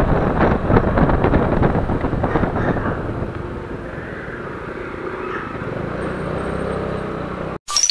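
Wind rushing over the microphone of a camera on a moving motorcycle, with the bike running underneath, loud at first and quieter after about three seconds. Near the end the sound cuts out for a moment, then a brief harsh glitch effect.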